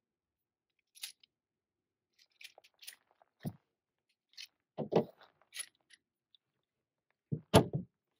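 Handguns being handled and set down on a plastic folding table: a scattering of short clicks and knocks, the loudest about seven and a half seconds in.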